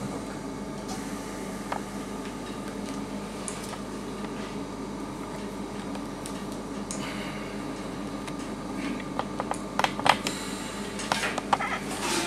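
Steady machine hum with several constant tones, and a run of light clicks and rattles near the end from hands handling plastic anaesthetic tubing and the endotracheal tube at the dog's head.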